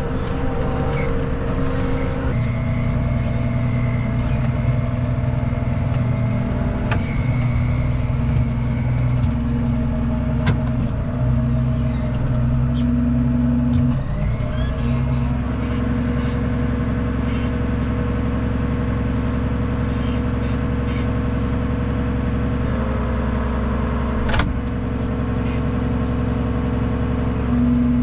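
Tractor engine running steadily, heard from inside the cab while driving; its note shifts down around two seconds in and changes again about halfway through. A sharp knock stands out near the end.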